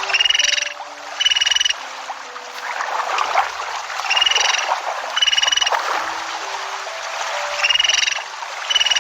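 An animal giving short pulsed calls, six in all, in pairs about a second apart, over a steady hiss.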